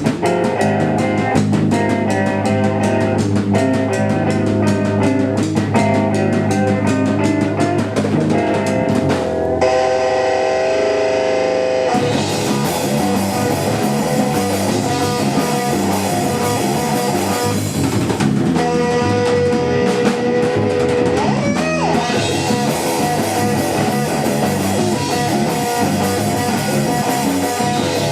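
Post-hardcore / math-rock band playing live: electric guitar, bass and drum kit. About nine seconds in the drums stop and the guitar rings on alone for a couple of seconds, then the full band comes back in.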